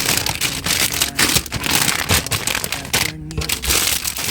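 Plastic packaging or grocery bags crinkling and rustling in quick, irregular crackles as items are handled.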